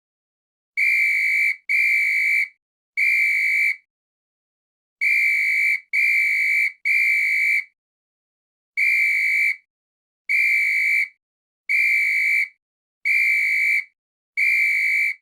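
Night watchman's whistle blown in short blasts of one steady, high pitch, each under a second long. They come as a pair, then a single, then a run of three, then single blasts about every second and a half.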